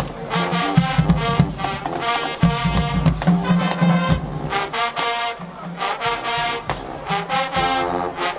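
Marching band playing, brass section sounding full chords over low brass bass notes, with a steady drumline beat.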